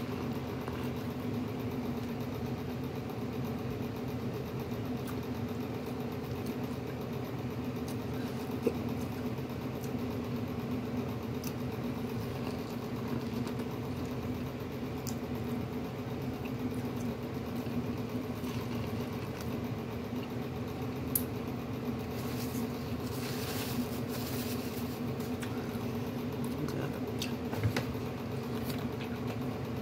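Steady low mechanical hum of a running motor, holding several level tones. A few faint clicks and, about three-quarters through, a few seconds of soft higher noise sit on top of it.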